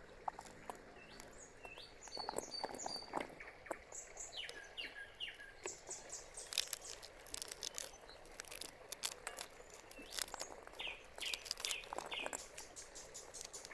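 Small birds chirping in short, quick gliding notes, over a run of sharp clicks and taps.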